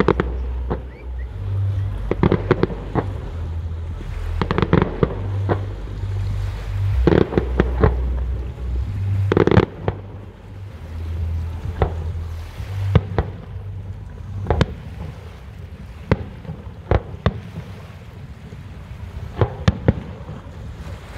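Fireworks shells bursting in a series of bangs and crackles, in dense clusters for about the first ten seconds, then sparser and fainter.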